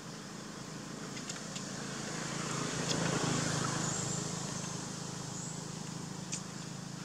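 A distant motor vehicle's engine passing: a low hum that swells to a peak about three seconds in and then fades. A few short high ticks sound over it.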